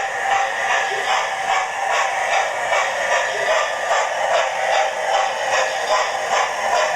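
Hornby TTS digital sound decoder in an OO-gauge BR Class 8 Duke of Gloucester model, playing steam locomotive exhaust chuffs at a steady, even rhythm through its small speaker as the model runs. The sound is thin and lacks bass.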